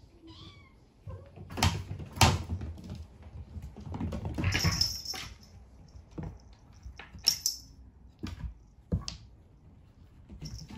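Kittens batting at a wooden ball-track tower toy on a wooden floor: irregular wooden knocks and clicks, with a denser rattle of the balls about four seconds in.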